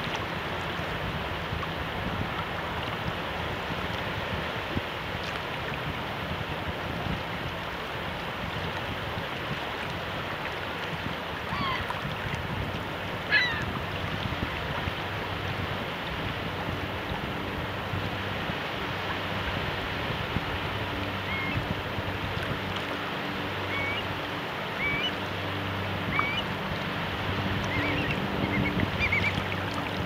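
Shallow incoming tide rippling over sand flats, a steady wash of water and wind. Short bird calls come now and then, mostly in the second half, and a faint low hum joins about halfway through.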